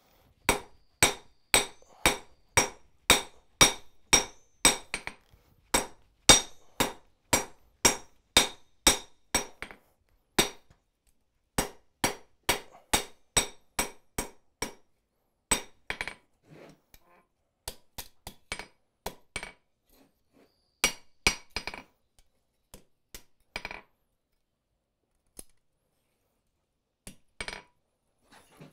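A hand hammer strikes hot steel on an anvil, spreading the end of the bar. The blows come in a steady run of about two a second for the first ten seconds. After that they come in shorter groups separated by pauses. Each blow leaves a bright metallic ring.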